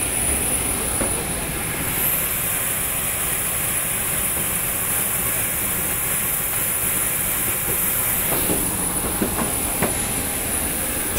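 Steady loud roar of jet aircraft running on an airport apron, with a thin high whine held over it. A few footfalls on metal airstair steps near the end.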